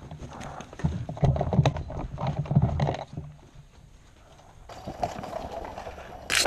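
Footsteps and the clatter of gear as players move on foot over wooden boards and dirt, busiest in the first half, with one sharp knock at the very end.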